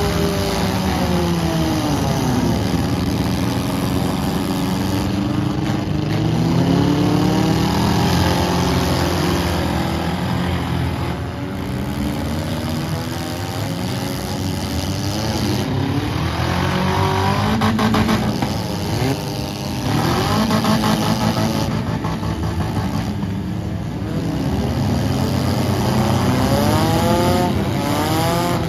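Several demolition derby cars' engines revving hard and falling back, their pitches rising and falling over one another in a continuous loud mix.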